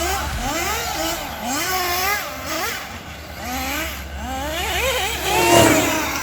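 Radio-controlled car's motor revving, its whine rising and falling in pitch about once a second as the car speeds up and slows. About five and a half seconds in, a louder rushing sound swells up with it.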